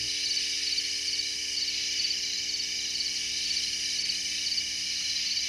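Crickets chirping at night: a steady high trill, with chirps repeating about twice a second.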